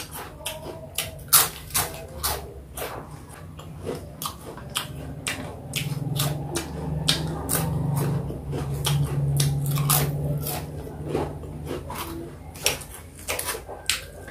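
A person eating close to the microphone, biting and chewing fruit with many sharp, wet mouth clicks and smacks. A low hum runs through the middle.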